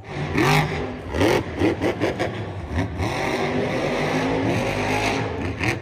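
Monster truck engine revving hard several times, then holding at high revs as the truck runs over dirt jumps.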